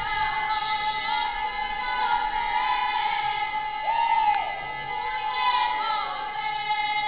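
A vocal group singing together, one voice holding a long steady note while the other voices move around it.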